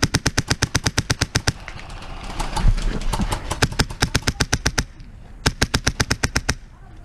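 Krytac airsoft rifle with a Wolverine Inferno Gen 2 HPA engine firing full-auto as suppressing fire. A long stream of sharp shots at about ten a second runs for nearly five seconds, then after a short pause a second burst of about a second follows. A dull thump comes about three seconds in.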